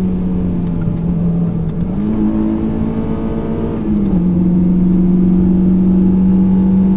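A Honda S2000's four-cylinder engine, still being broken in, running under load while driving. Its note holds steady, steps up in pitch about two seconds in, and drops back down near four seconds, then runs a little louder.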